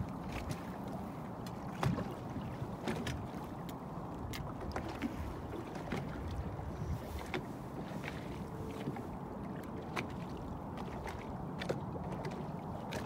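Choppy river water lapping and slapping against a boat's hull: a steady rush with irregular small splashes and knocks.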